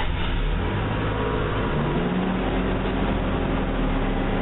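A car engine starts and runs steadily, heard through a doorbell camera's microphone, with its pitch rising slightly about two seconds in.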